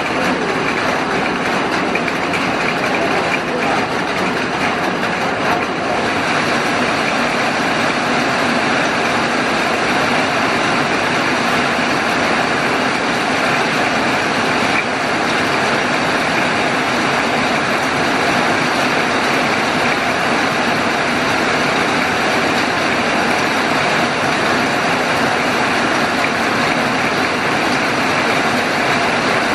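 Heavy rain pouring steadily, a loud, even hiss of downpour.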